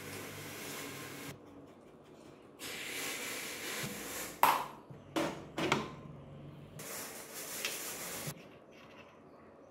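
Small metal parts from a Bajaj three-wheeler engine's clutch being handled: three sharp metallic clinks a little past the middle, the first the loudest, over a hiss that starts and stops abruptly several times.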